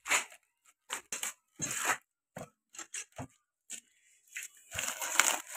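Irregular rustling and crinkling of plastic wrapping, with scrapes of a wooden crate, as a new tractor flywheel is handled in its packing. The sounds come in short separate bursts and grow busier near the end.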